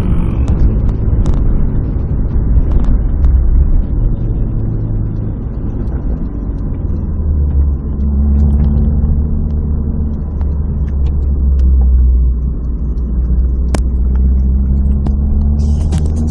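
Chevrolet Alto driven hard at speed, heard from inside the cabin: a heavy, steady rumble of engine and road. The engine note climbs near the end as the car pulls harder.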